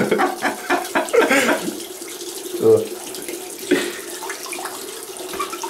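Water running steadily from a tap, with a few short bursts of a person's voice over it.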